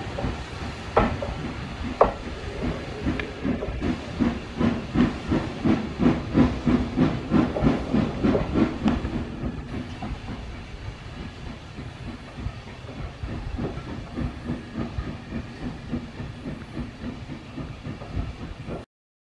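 Steam exhaust beats of a 1948 Hunslet 0-6-0 saddle tank working a train away up the line, an even chuffing of about three or four beats a second with hiss, that grows fainter as it recedes. Two sharp knocks sound about one and two seconds in, and the sound cuts off abruptly near the end.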